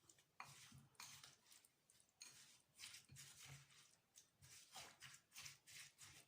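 Faint, irregular kitchen handling sounds: soft scrapes and clicks of food and utensils being worked.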